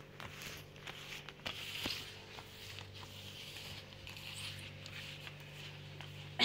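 A cloth being rubbed and wiped across a plastic tablecloth: repeated soft swishing strokes with small rustles and ticks, over a low steady hum. A short, sharp knock comes at the very end.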